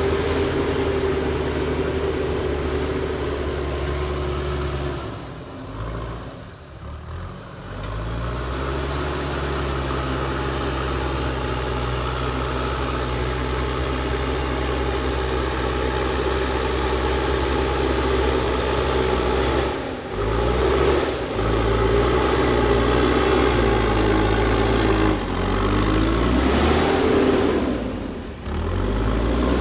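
JCB backhoe loader's diesel engine running steadily. Its sound drops away briefly about six seconds in, again around twenty seconds and near the end, with the engine pitch shifting up and down shortly before the last drop.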